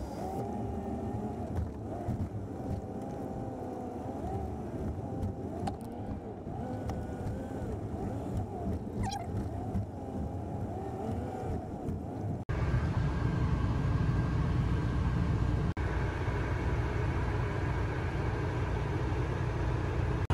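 Motorhome engine and road noise heard inside the cab as it drives slowly across a parking lot, the engine pitch wavering up and down. About twelve seconds in it cuts to a louder, steady low hum with a faint high whine.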